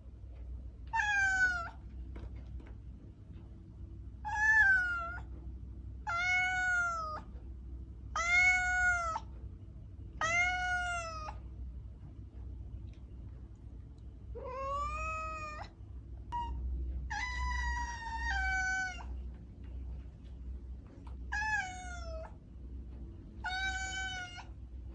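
Domestic cat yowling mating calls: a series of about nine drawn-out cries, each rising and falling in pitch and roughly two seconds apart, with one longer wavering cry past the middle.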